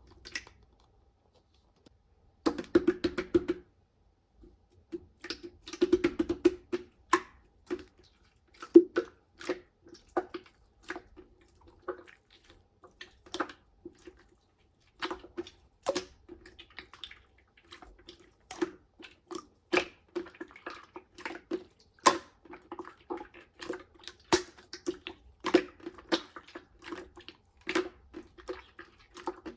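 Slime being squeezed, pressed and stretched by hand, making a run of wet clicks and pops that comes in about two seconds in and carries on, denser toward the end.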